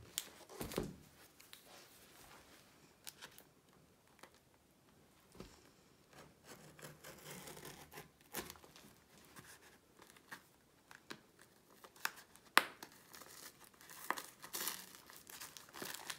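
Scissors cutting open the taped end of a cardboard package: scattered sharp snips with packing tape and cardboard tearing and crinkling between them. The loudest snip comes about three-quarters of the way through.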